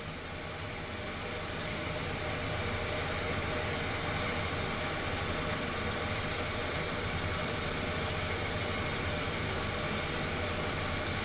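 EMS 7000SMZ2 vibrating microtome running in slice mode, its blade head vibrating with a steady mechanical hum and a thin, constant high whine. The sound builds slightly over the first couple of seconds, then holds level.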